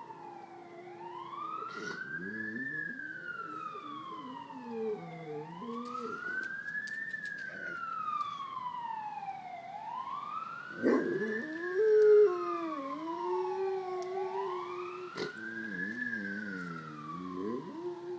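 Great Pyrenees dog howling low and wavering along with an emergency vehicle siren that wails slowly up and down about every four seconds. The dog's howl stays far below the siren's pitch, trying to imitate it, and is loudest a little past the middle.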